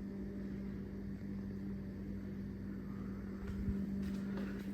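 Linear belt-drive garage door opener running quietly as it closes the door, a steady low hum, with a soft low bump a little past three seconds in.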